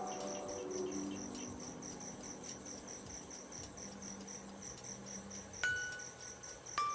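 Crickets chirping steadily in a fast even pulse, with a faint low hum underneath. Two short ringing tones sound near the end.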